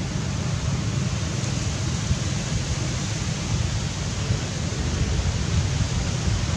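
Wind buffeting the microphone: a steady rushing hiss over a low, unevenly flickering rumble.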